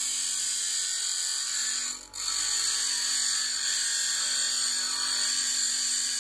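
Large steel nail pressed hard against the spinning stone wheel of a Parkside PDOS 200 double bench grinder, giving a steady, high grinding hiss. The grinding briefly breaks off about two seconds in, then carries on.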